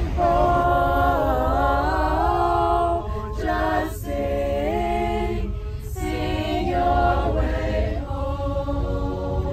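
A student choir singing together in harmony, holding long notes with a few short breaks between phrases, over a steady low rumble from the charter bus they are riding in.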